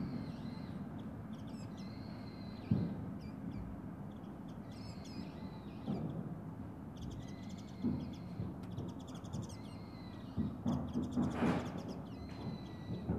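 Carpenters' hammer blows on timber framing, a few scattered strikes with a loud one about three seconds in and a quick run of blows near the end, over a steady low rumble. Birds call repeatedly in short bouts throughout.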